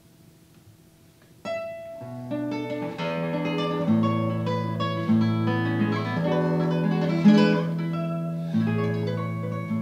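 Solo nylon-string classical guitar, fingerpicked. A few faint notes ring out for the first second or so, then a new passage starts sharply and carries on as a run of picked notes over held bass notes.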